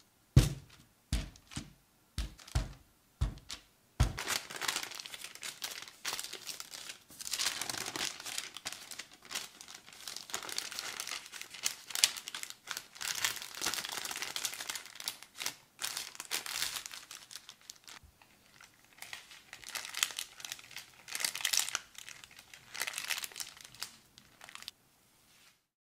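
Baking paper crinkling and rustling as it is folded around a block of butter and worked flat with a rolling pin. It is preceded by about seven sharp knocks in the first four seconds.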